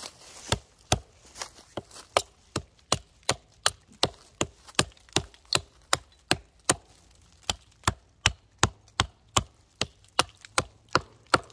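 A hatchet chopping into the top of an old, weathered tree stump, flattening it. The strikes come in a steady run of sharp blows, between two and three a second, with one brief pause about two-thirds of the way through.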